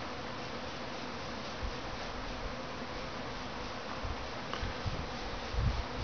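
Honey bee swarm buzzing steadily, with a few low bumps near the end.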